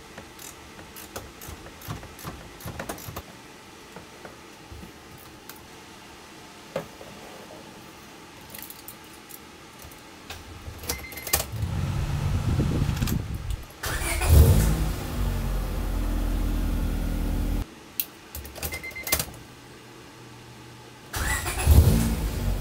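Light clicks and rattles of small parts being handled. Then a short electronic beep, and the Honda Integra Type-R's B18C four-cylinder cranks on the starter, catches with a quick rev and idles steadily before being shut off abruptly. A second beep follows, then it is cranked and started again with a rev near the end.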